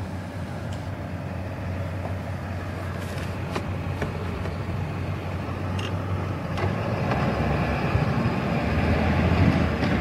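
Blizzard wind rumbling and gusting against the microphone over a constant low hum, growing louder in the second half, with a few faint clicks.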